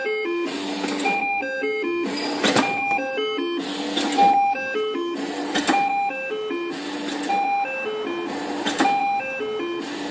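Background music: a repeating electronic melody of short stepping notes over a steady beat.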